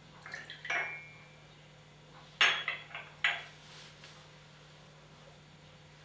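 Porcelain coffee cups and saucers clinking as cups are handled and set down: a few light clinks with a brief ring in the first second, then a louder clatter of four quick clinks about two and a half seconds in.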